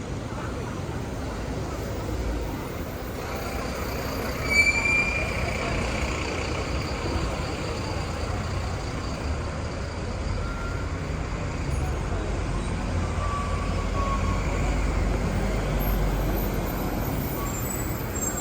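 City street traffic: a steady low rumble of passing buses and trucks, growing heavier in the second half as a large vehicle goes by. A short high squeal sounds about four and a half seconds in.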